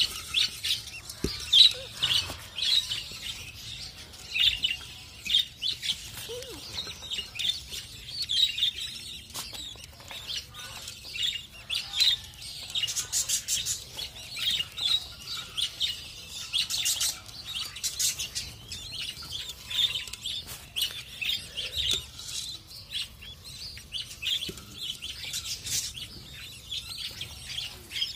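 A colony of budgerigars chirping and chattering continuously: many rapid, short, high calls overlapping one another.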